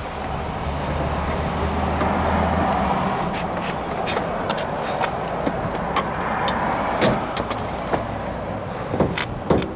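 Steady rush of passing road traffic that swells and eases over several seconds, with scattered light clicks and knocks throughout.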